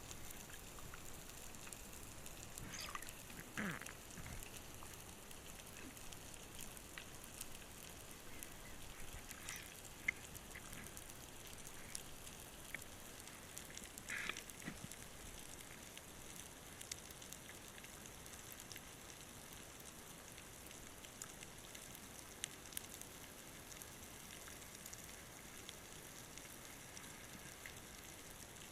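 Faint underwater crackle and hiss made of a dense scatter of small sharp clicks, with a couple of short squeaky glides, one about three seconds in falling in pitch and another about fourteen seconds in.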